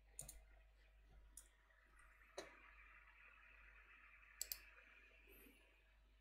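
A few faint, sharp computer clicks, about four spread over six seconds, some as a quick double click, over a quiet hiss.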